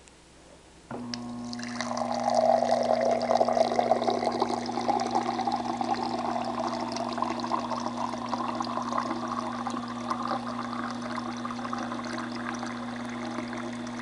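GE Profile PFE29PSDSS refrigerator's door water dispenser filling a glass on autofill. A steady hum starts about a second in, then water pours into the glass, its pitch rising slowly as the glass fills.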